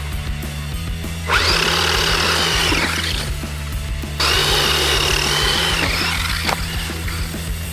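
Electric motor and drivetrain of a toy RC buggy whining at speed, twice for about two seconds each, the pitch rising, holding and falling each time, over background music.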